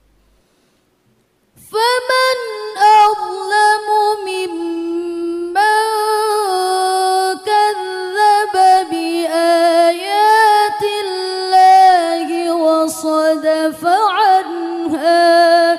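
A young woman reciting the Qur'an in the melodic murattal style into a microphone, holding long notes with wavering, ornamented pitch turns. The recitation begins about two seconds in, after near silence.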